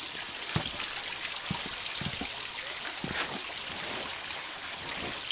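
Steady rain falling, with a few irregular drips or taps landing nearby.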